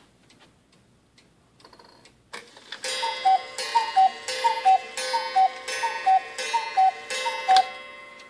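A German mechanical cuckoo clock strikes the hour. Its two bellows-driven whistles sound the falling two-note cuckoo call over and over, about one call every 0.7 s, each with a hammer strike on the gong wire that rings on. Faint ticking comes first, and the calls begin about three seconds in.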